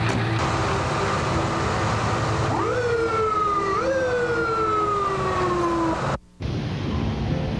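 Ambulance siren wailing over vehicle engine noise: starting about two and a half seconds in, it sweeps quickly up in pitch and slides slowly down, twice, then cuts off abruptly. After a brief gap, music begins.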